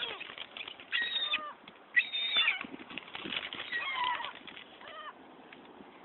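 A flock of gulls giving short, high mewing calls several times, with wings flapping as birds take off and land.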